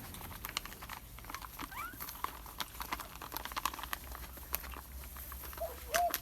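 Bangkaew puppies scrabbling about: a scatter of light clicks and taps, with a short rising squeak about two seconds in. A few short cooing notes come near the end.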